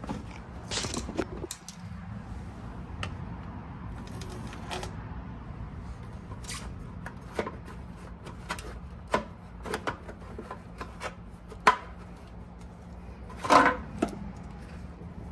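Irregular clicks, taps and knocks of hands handling parts on a motorcycle's frame and side cover, over a steady low hum. The loudest is a short rattle shortly before the end.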